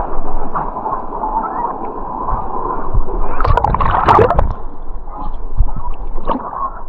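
Waterfall water rushing, muffled, with splashing close by; the loudest splash comes about three and a half to four and a half seconds in.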